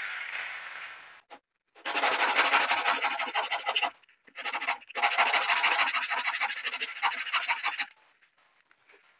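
Sandpaper wrapped on a wooden block rubbed back and forth along the freshly cut edge of melamine-faced blockboard, in two spells of quick scraping strokes, about two and three seconds long. Before them, in the first second, a jigsaw's motor dies away.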